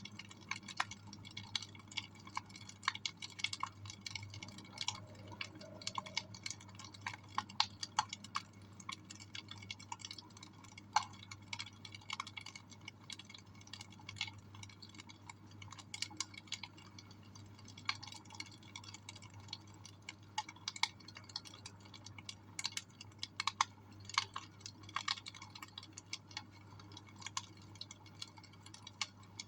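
Wood fire crackling in a fireplace: irregular sharp pops and snaps, several a second, over a steady low hum.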